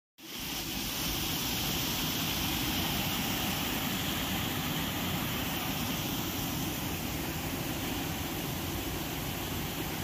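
Steady rush of a waterfall and rocky mountain stream, water cascading over boulders. It fades in just at the start.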